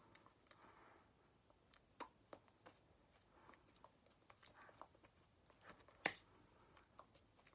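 Quiet, scattered taps, brushes and rustles of hands striking and sliding against each other and the shirt while signing, with a sharper slap about six seconds in.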